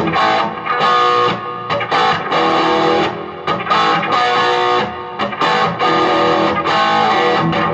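Electric guitar played through a 15-watt Marshall MG15 combo amp with an upgraded Celestion Super 8 eight-inch speaker. It plays a riff of repeated strummed chords, each about half a second long, with short breaks between them.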